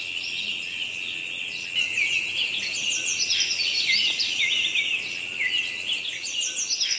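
Birds chirping and singing in a busy chorus, over a steady high-pitched insect-like drone, as in a nature ambience track. The chirping grows louder about two seconds in.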